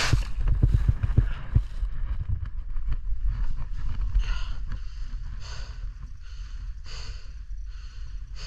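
Snow scraping and knocking against a helmet camera as a fallen skier comes to rest, over a low rumble on the microphone. Then hard, regular breaths, about one every second and a half, from the skier lying in the snow.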